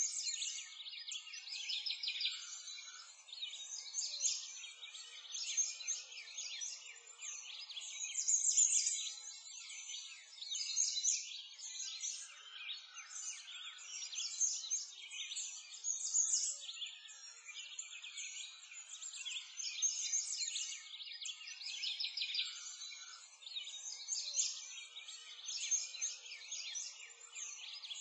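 Continuous high-pitched chirping and twittering of many small songbirds, a dense chorus that swells and fades every second or two.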